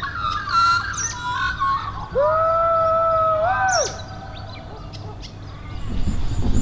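Birds calling: short chirps and whistles, then one long, drawn-out call about two seconds in that holds a steady pitch before bending away. A low rumble rises near the end.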